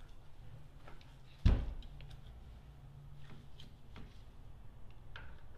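Hand grease gun being worked on the grease fitting of a cordless ratchet's head: one sharp knock about a second and a half in, then a few light clicks of metal on metal.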